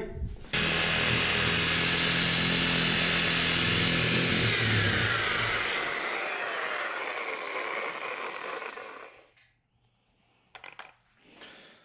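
Electric power tool motor running at full speed, starting abruptly about half a second in. About four seconds in it is switched off, and its whine falls steadily in pitch as the motor winds down, fading out after a few more seconds.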